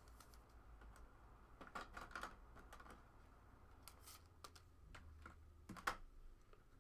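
Faint, scattered clicks and rustles of trading cards being handled and slid out of packs.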